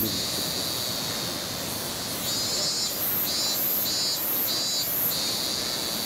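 Cicadas shrilling in a high buzz: steady at first, breaking into short pulsed calls about twice a second midway, then steady again near the end. Underneath is a steady rushing hiss.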